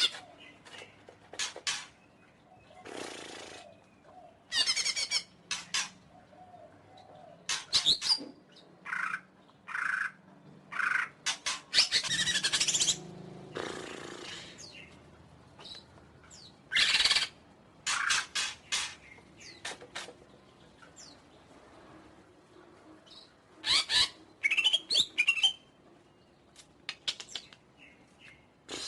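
Cucak ijo (green leafbird) singing: loud bursts of quick, varied chattering and warbled phrases separated by short pauses, with a quieter spell about two-thirds of the way through.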